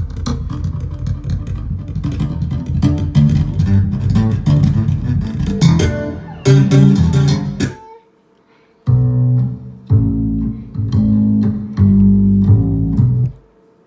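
Music with a prominent bass guitar line played through an old-school car audio system built around an Alpine 7619R head unit. The music stops abruptly about eight seconds in, comes back after a second's pause in bass-heavy phrases, and cuts off shortly before the end.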